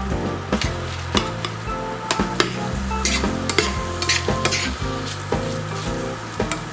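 Food sizzling as it is stir-fried in a frying pan, with a spatula clicking and scraping against the pan many times.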